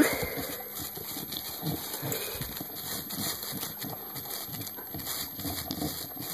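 A dog chewing and licking at feces in a plastic bag, making irregular small wet clicks, with the bag rustling under its muzzle; loudest right at the start.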